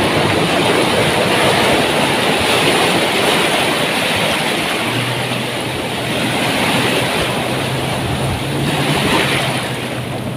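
Sea surf at the shoreline: waves breaking and foamy water washing up over the sand in a steady, loud rush that swells and eases.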